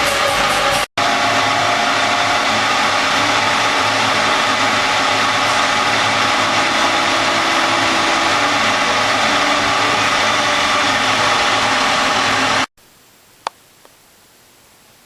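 TIG welding arc hissing steadily. It breaks off for an instant about a second in and stops abruptly near the end, leaving a faint hiss and a single click.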